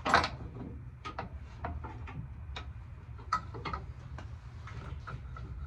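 Metal clank right at the start, then scattered light clicks and ticks of steel tailgate hardware being handled while the tailgate assist bar is fitted and the tailgate lifted.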